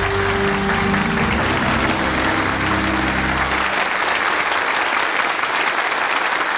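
Studio audience applauding steadily. A low music sting plays under the applause and stops a little past halfway.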